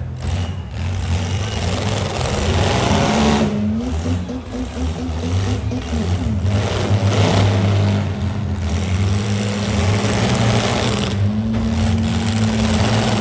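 Demolition derby car engines running loudly and revving, their pitch rising and falling over a steady low drone.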